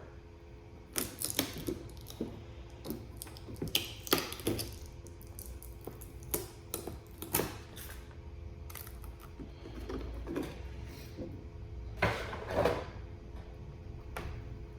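Cardboard and plastic packaging being handled: irregular clicks, taps and short rustling scrapes, the loudest about 4 s in and again about 12 s in.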